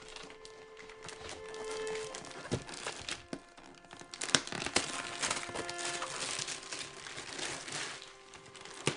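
Wrapping paper being torn and crumpled as a gift is unwrapped: crinkling and ripping with sharp crackles, starting a couple of seconds in and loudest around the middle.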